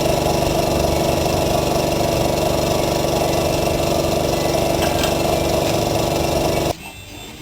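A small machine motor running steadily at one constant speed, then cutting off suddenly near the end.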